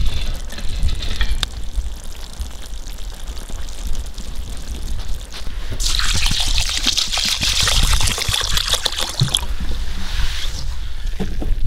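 Water poured in a steady stream onto rice in a metal sieve, a loud splashing hiss that starts about six seconds in and lasts about three and a half seconds, then fainter sloshing as the rice is rinsed. Before the pour, a quieter simmering from a pot of meat and vegetables over a wood fire.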